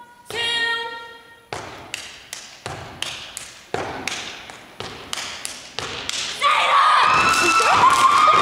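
Step team stomping and clapping, a run of sharp echoing hits at about three a second, after a short shouted call from a performer. From about six seconds in, the audience cheers and whoops.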